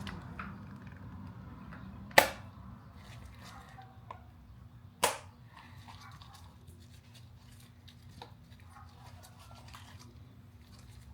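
Two sharp clicks, about three seconds apart, from hand work on short-shifter parts, with faint handling noise and a low steady hum in between.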